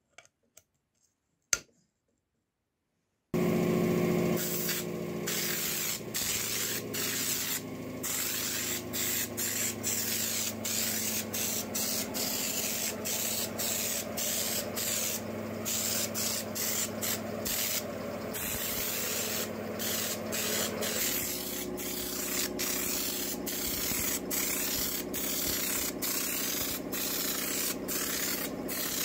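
Compressed-air undercoating spray gun spraying textured bed-liner coating: a loud steady hiss of air and atomised coating, broken by short gaps more than once a second as the trigger is released and squeezed again, with a low hum underneath. It starts about three seconds in, after a single sharp click.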